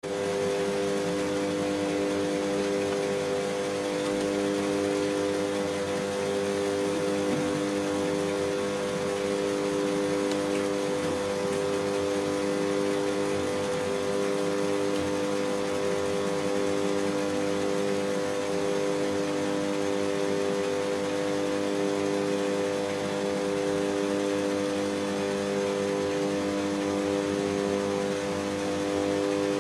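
Stand-up tanning booths running with their UV tubes lit: a steady whirring hum that does not change.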